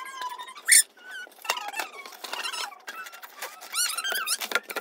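Cardboard toy box and its plastic packaging being handled and opened: scattered squeaks and rustles with short clicks as the packaging is pulled and slid apart.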